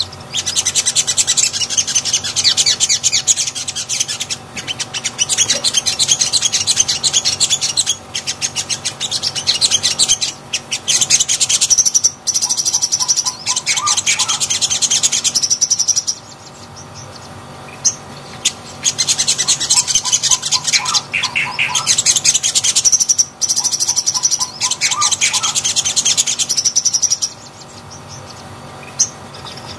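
Caged sogon (sogok ontong) singing: long runs of rapid, high-pitched chattering song lasting several seconds each, broken by short pauses. Some runs carry a brief series of lower, rising notes.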